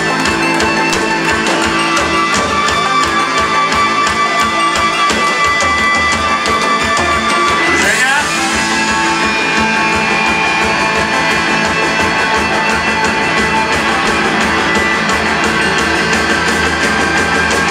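Live rock band playing loudly, electric guitar and drum kit to the fore, with a brief sliding sweep about eight seconds in.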